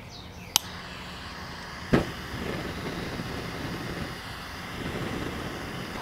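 A sharp click, then a knock about two seconds in, after which propane gas hisses steadily out of an unlit stainless venturi burner tube.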